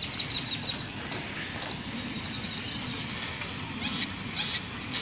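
Electric RC offshore boat running on the water, heard as a low, uneven chatter with no steady motor whine. A blade has broken off its three-blade propeller. Birds chirp in the background.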